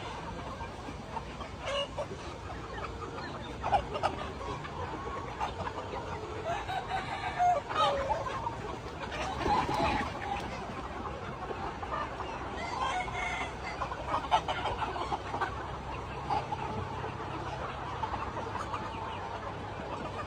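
A flock of chickens clucking and calling over one another, with a rooster crowing among them.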